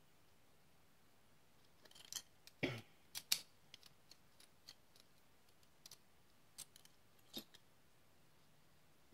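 Small metal parts of an American 1105 padlock clicking and tapping together as they are handled by hand. After a quiet start comes a string of sharp, light clicks, the loudest two close together about three seconds in, then scattered clicks that trail off.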